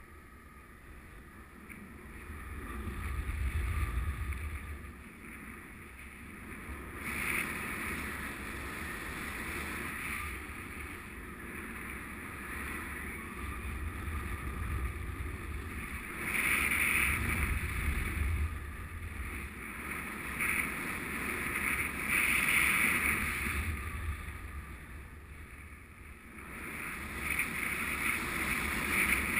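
Wind rushing over the microphone of a camera on a flying paraglider, rising and falling in gusts, with louder surges about four seconds in, twice in the second half, and again near the end.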